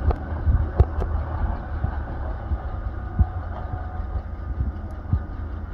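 Airbus A320neo-family airliner's CFM LEAP-1A jet engines at takeoff thrust as it lifts off and climbs away: a steady rumble with a faint whine, broken by irregular low thumps of wind on the microphone.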